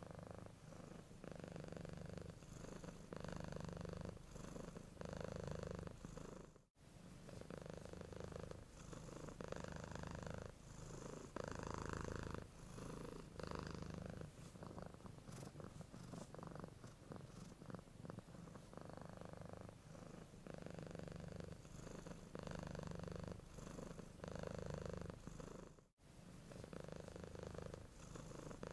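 Domestic cat purring steadily, the purr swelling and fading with each breath in and out, about once a second. It cuts out abruptly for an instant twice.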